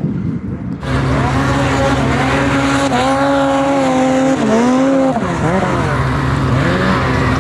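Snowmobile engine running hard at high revs while the sled carves through deep powder. It comes in about a second in, and its pitch dips twice past the middle as the throttle eases, then climbs back.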